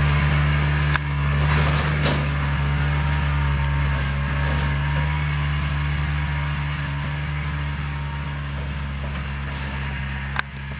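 Polaris 250 4x4 ATV engine running steadily in low range under load, pulling a heavy trailer of wood rounds, growing gradually quieter. A few sharp knocks and a short rattle come through, about a second in and again near the end.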